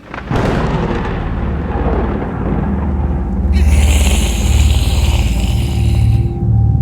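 Cinematic sound-effect opening: a sudden deep boom, then a low rumbling drone. A high hiss comes in about three and a half seconds in and cuts off about three seconds later.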